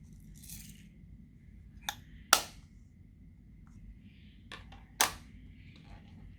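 Sharp clicks and taps from handling slime and the things being mixed into it: three distinct clicks, the loudest about two and a half seconds in, a quieter pair shortly before the last, and a brief rustle near the start.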